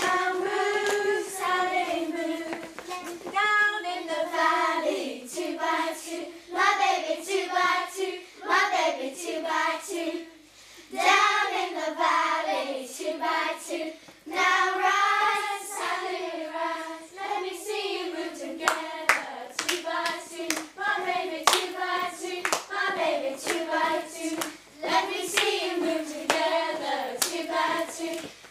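Voices singing a playground clapping-game song, with sharp hand claps keeping the beat. The singing breaks off briefly a few times between phrases.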